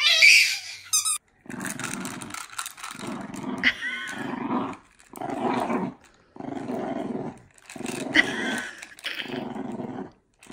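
Low growling in about seven rough bursts, roughly one a second, with short breaks between them. Just before this, a short high squeal of a baby laughing.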